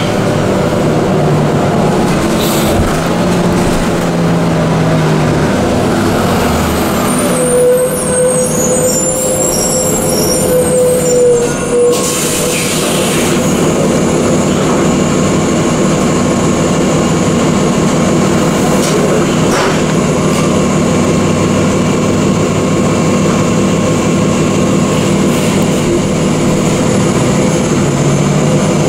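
Subway train running, a loud steady rumble with a whining tone that rises and falls briefly near the middle.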